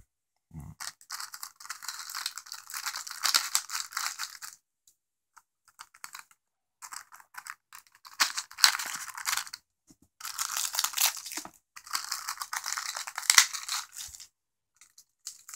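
Knife slitting and tearing the printed plastic wrapping off a firework cake: four long bursts of ripping and crinkling with short pauses between.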